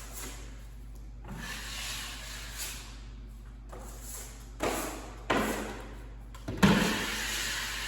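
Drywall knife scraping joint compound along the wall in several strokes, with a few sharper knocks, the loudest a thump about six and a half seconds in.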